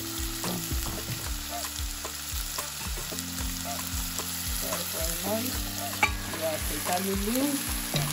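Chopped courgette, onion and leek sizzling as they fry in oil in a pot, with a steady music beat and held bass notes underneath.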